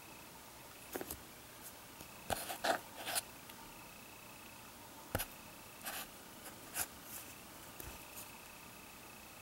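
Fingers handling a paper-wrapped roll of half dollars: scattered short rustles and taps on the paper wrapper, with a cluster of them about two to three seconds in.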